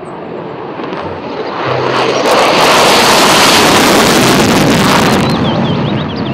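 Single-engine F-16 fighter jet taking off on afterburner: a loud jet roar that swells over the first two seconds, holds, and falls off in the last second as the jet climbs away.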